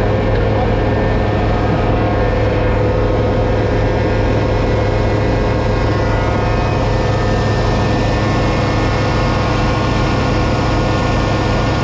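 Heavy truck's diesel engine idling steadily, running again after a jump start from a portable jump box.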